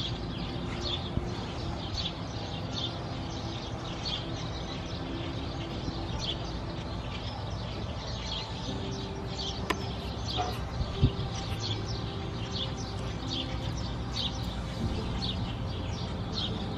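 Birds singing: short, high chirps repeating about twice a second over a steady low background rumble, with a sharp click about eleven seconds in.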